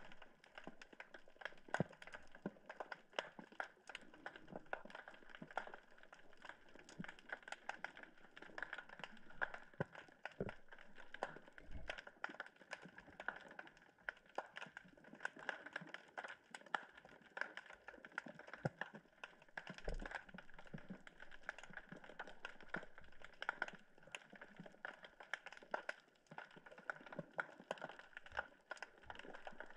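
Underwater ambience picked up by a submerged camera: a dense, irregular crackle of many sharp clicks, with a faint steady hiss underneath.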